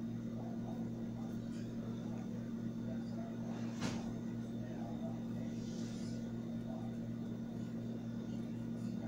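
Steady low electrical hum throughout, with a single light tap about four seconds in.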